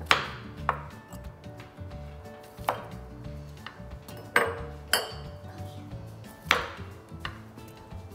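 Irregular sharp knocks and clinks of kitchen work with kumquats, about seven in all, a few with a short ring, over soft background music.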